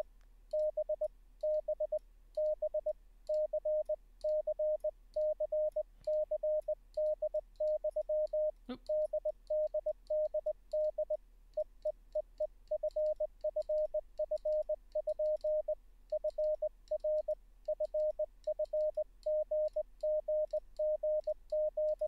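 Hand-sent Morse code (CW) sidetone: a steady tone of about 600 Hz keyed on and off in dits and dahs, spelling out the alphabet letter by letter as a sending drill. A single brief click about nine seconds in.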